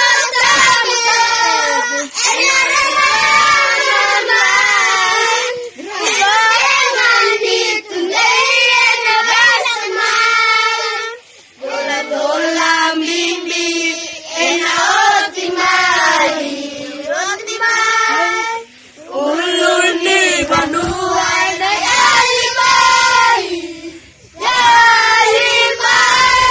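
A group of children singing a song together in unison, without instruments, in long phrases with short breaks between them.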